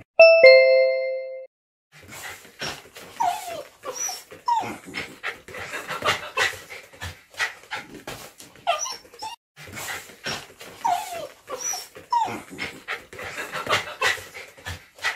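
A two-note falling chime rings once, then a Shetland sheepdog whimpers in short, falling whines among many quick clicks and rustles.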